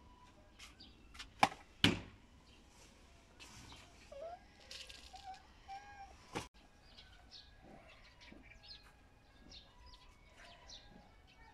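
A shot from a plastic toy bow: two sharp knocks about half a second apart, the string snapping on release and the soft ball-tipped arrow hitting the target. A single lighter knock follows a few seconds later, and birds chirp faintly throughout.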